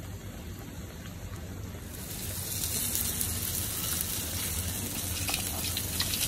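Flour-coated stuffed pomfret shallow-frying in hot oil on a flat tawa: a steady sizzle that grows louder about two seconds in. A metal spatula scrapes lightly under the fish near the end.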